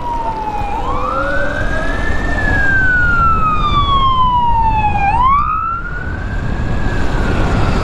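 An emergency vehicle siren wailing: its pitch sweeps up about a second in, falls slowly over about three seconds, then sweeps up again, over a steady low rumble of wind noise.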